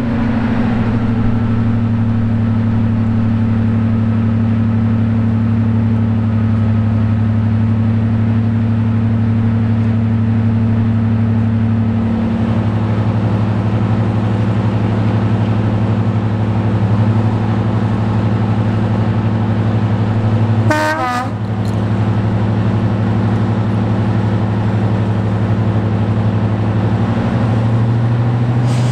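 A Class 55 Deltic diesel locomotive's twin Napier Deltic two-stroke engines work under power as it pulls its train away, a deep, loud, steady engine note. The note shifts pitch about 12 seconds in and again near the end. A brief warbling sound comes about 21 seconds in.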